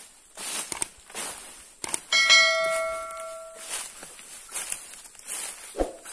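A single metallic clang about two seconds in that rings on and fades over about a second and a half, amid footsteps and rustling through brush.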